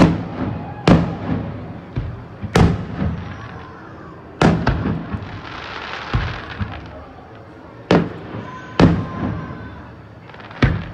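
Aerial fireworks shells bursting one after another: about seven sharp booms, each trailing off in a rumbling echo, with a stretch of hiss about five seconds in.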